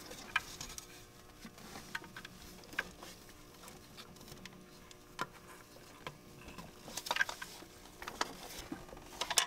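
Faint, scattered clicks and light knocks of the plastic PCV oil trap box and its rubber breather hoses being handled and slid back onto the engine block, with a small flurry of clicks near the end.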